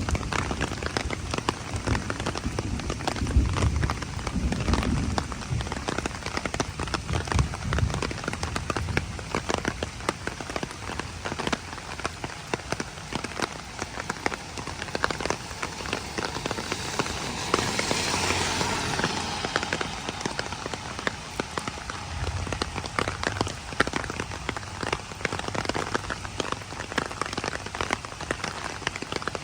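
Heavy rain pattering steadily on a surface, dense with individual drop hits. A low rumble underlies the first few seconds, and the hiss swells briefly a little past the middle.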